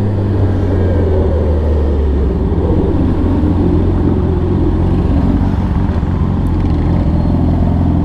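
Yamaha R6 sportbike's inline-four engine running steadily at low speed, its note changing about two and a half seconds in.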